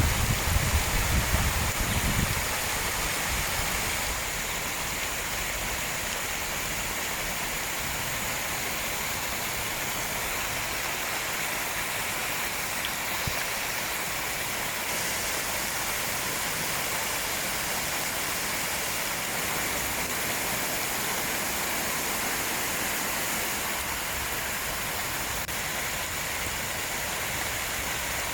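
Flowing stream water, a steady rushing. A louder low rumble sits under it for the first two seconds, then drops away.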